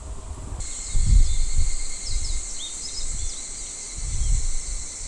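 Outdoor evening ambience: insects trilling steadily, with birds chirping now and then. Wind rumbles on the microphone in gusts, loudest about a second in and again near the end.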